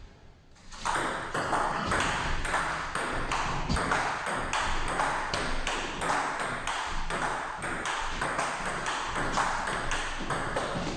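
Table tennis ball hit back and forth with rubber-faced bats and bouncing on the table in a long rally, a quick steady run of sharp clicks about three a second.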